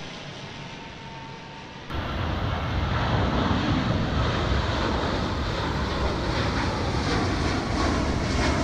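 Twin-engine jet airliner climbing out after takeoff: its engines at takeoff thrust make a loud, steady roar that starts abruptly about two seconds in. Before that there is a quieter rushing noise.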